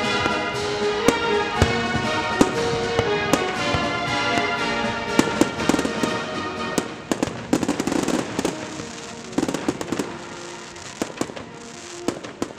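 Fireworks bursting: a string of sharp bangs and crackles. Music plays along and fades out about halfway through, after which the crackling bangs come thicker.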